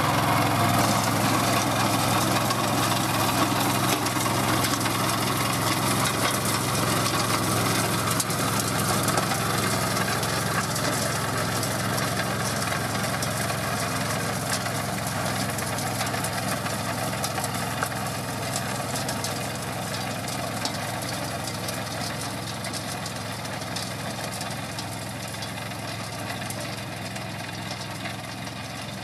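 The single-cylinder Honda GX340 engine of a Grillo G107D walk-behind tractor running steadily at about half throttle while its rotary tiller cultivates soil in second gear. The sound fades gradually as the machine moves away.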